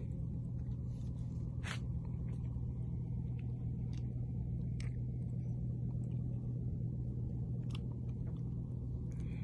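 Steady low drone of a fishing boat's engine running, with a few faint clicks.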